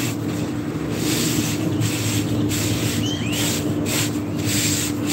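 Paper towel rubbed back and forth across an electric griddle's greasy flat top: a rhythmic scrubbing swish, roughly one and a half strokes a second, over a steady hum.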